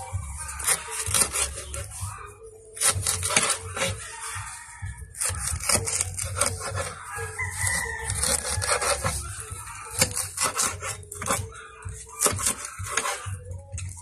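Large kitchen knife chopping fresh taro leaves on a wooden chopping board: runs of quick blade strikes against the wood with short pauses between.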